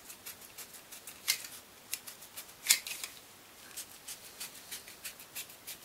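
Curved Lexan scissors snipping through the plastic of a Stormtrooper helmet ear piece: a run of quick, short snips, with a few louder cuts among them.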